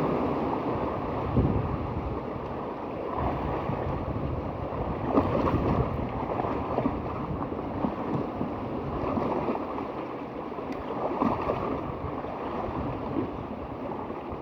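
Wind buffeting the microphone over the wash of waves on the shore, with a few short knocks.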